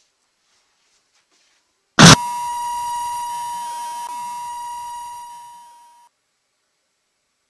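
Flash-bang stun grenade sound effect: one sudden loud bang about two seconds in, followed at once by a steady high-pitched ear-ringing whine that fades over about four seconds and then cuts off.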